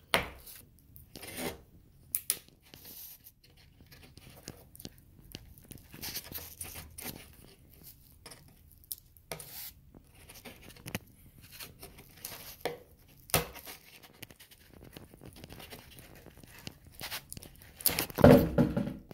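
Scattered small clicks, taps and short scrapes of hands working a glue jig loose from an epoxied wiring connector. A louder burst of scraping and knocking comes near the end.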